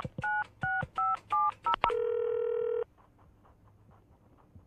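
Telephone keypad tones: a quick run of about six two-tone dialling beeps in two seconds, then a steady tone lasting just under a second, followed by faint regular ticking.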